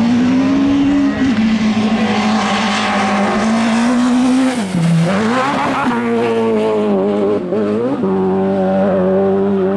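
Autocross cars racing on a dirt track, their engines held at high revs with brief drops in pitch as drivers lift or shift, most clearly about five seconds in and again near eight seconds.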